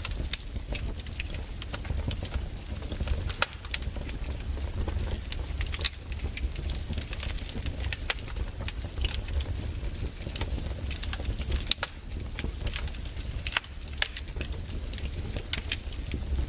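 Wood logs burning in a fireplace, crackling with many irregular sharp pops over a steady low rumble of the flames.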